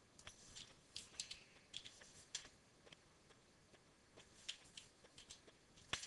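Faint computer keyboard typing, keystrokes coming in short clusters with pauses between, and one sharper click near the end.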